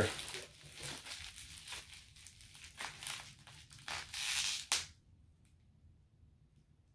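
Plastic packaging wrap crinkling and tearing as a parcel is unwrapped by hand, with a louder stretch of tearing about four seconds in. The rustling stops about five seconds in.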